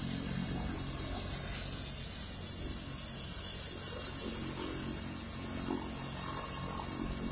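Helicopter running on the ground: a steady turbine and rotor noise with a low hum, holding even throughout.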